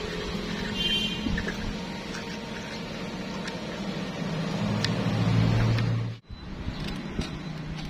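A few faint metal clicks and scrapes as the steel pipe-hinge halves are slid together on their pin, over a steady low hum that swells a little and then cuts out abruptly about six seconds in, coming back a moment later.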